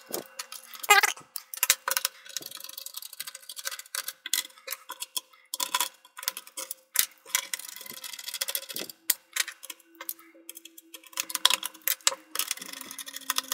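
Small screws being turned out of a plastic mini-PC case with a Phillips screwdriver: an irregular run of light clicks, ticks and scrapes of metal on plastic and screw.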